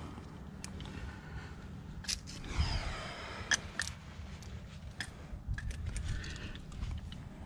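Sharp clicks, clinks and light scrapes of climbing gear on a harness, carabiners and quickdraws knocking together, with hands and shoes moving on limestone. The clicks come irregularly, several close together between about two and a half and four seconds in.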